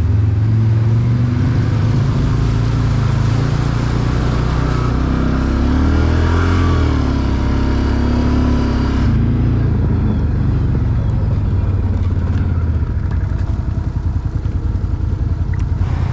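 Off-road quad engine running while driving, its pitch rising and falling about halfway through. The higher hiss drops away suddenly about nine seconds in.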